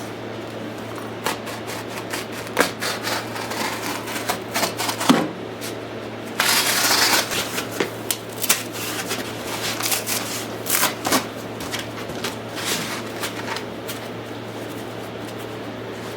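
Styrofoam packing material being handled, rustling and clicking in irregular bursts, with a louder scraping rush about six seconds in, over a steady low hum.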